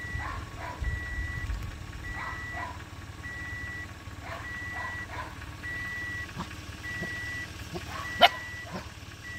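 An electronic reversing-alarm beep repeating about once a second at one steady pitch. Over it, puppies whimper in short high cries, and one sharp yelp comes about eight seconds in.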